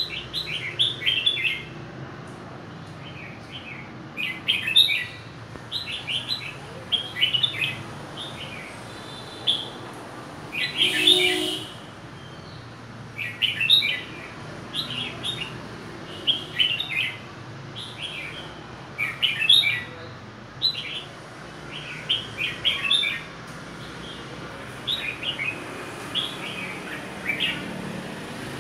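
Caged red-whiskered bulbul singing in short, quick phrases of chirpy whistled notes, each about a second long, repeated every one to three seconds.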